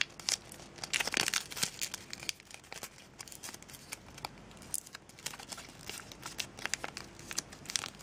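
Sheet of origami paper crinkling and rustling in the hands as a flap is folded to the middle line and creased, in irregular short crackles.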